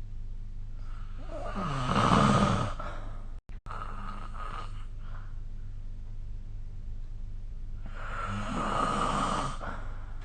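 A sleeping person snoring: two snoring breaths about six seconds apart, each lasting a second or two, the first louder than the second. A steady low hum runs underneath.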